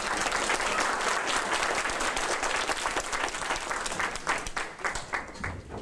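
Audience applauding, dense clapping that thins out to scattered claps near the end.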